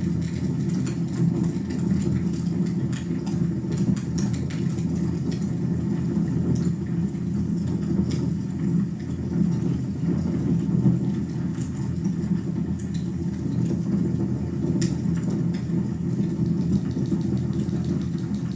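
Wood fire burning in a fireplace: a steady low roar with a few faint, scattered crackles.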